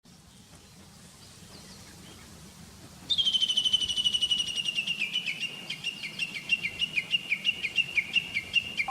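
A bird's long, rapid trill begins about three seconds in: many quick repeated notes that slowly fall in pitch, over faint outdoor background noise.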